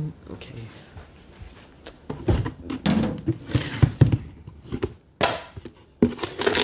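Things being handled and set down: a run of knocks, clunks and rustles about two to four seconds in, then two sharp clicks near the end.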